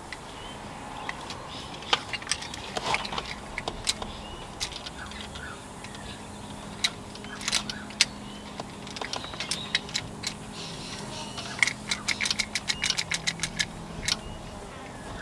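Clicking and rattling at a Lada Niva's ignition and bare dash wiring as the engine is tried and fails to start, with a quick run of clicks near the end. A steady low hum runs underneath from about four seconds in.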